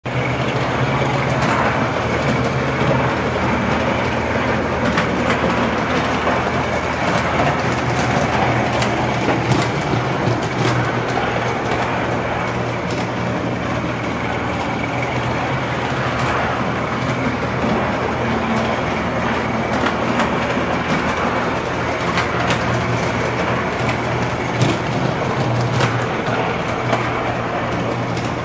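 Gauge 1 live-steam model locomotive pulling three coaches along the track: a steady running noise with a low hum, broken by scattered clicks of wheels over the rail joints.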